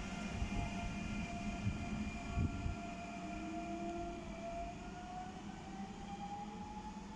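TER 2N NG double-deck electric multiple unit pulling away along the platform: a low rail rumble with a couple of thumps in the first few seconds, over a steady whine from the traction motors that rises slowly in pitch as the train speeds up. The sound fades as the train draws away.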